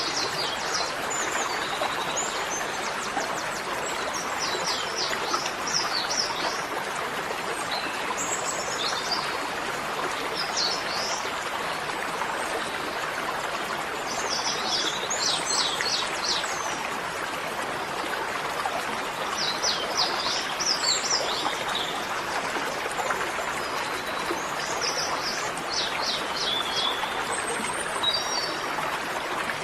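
Small birds chirping in short, quick trilled phrases every few seconds over a steady rushing background noise.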